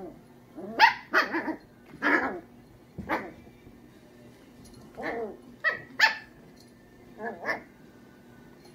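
A small puppy barking in short, high yaps, about ten of them in little groups of one to three, during play with a toy.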